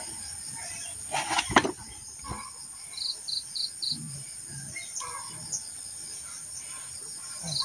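Insects chirping: short runs of quick, high-pitched pulses, about four a second, over a steady high drone. A few soft knocks sound about a second and a half in.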